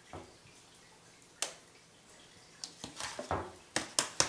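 Metal spoon scooping rice out of a plastic container and onto a plate: a soft knock at first, a single sharp tap about a second and a half in, then a quick run of taps and scrapes in the last second and a half.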